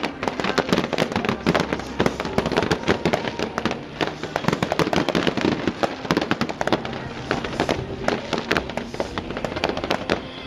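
Aerial fireworks going off in a rapid, continuous barrage of bangs and crackles, many a second, without a break.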